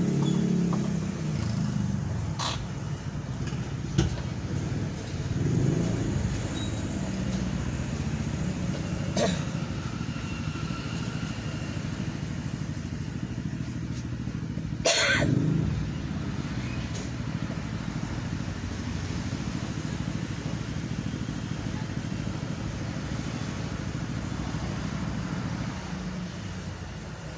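Road traffic heard from inside a stationary car: a steady low hum with passing motorcycles swelling by now and then. A single short, sharp noise comes about halfway through.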